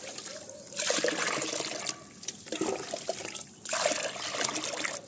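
Water pouring and splashing into a plastic bucket of brown banana-peel soaking water, coming in louder spells with short dips between. The peel water is being diluted with an equal amount of fresh water to make a liquid fertiliser.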